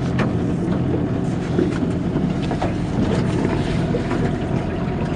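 Small metal fishing boat's motor running steadily while the boat is under way.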